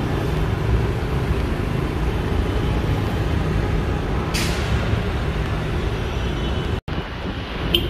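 City street traffic running steadily, with a short sharp hiss of air about four seconds in. The sound drops out for an instant near the end.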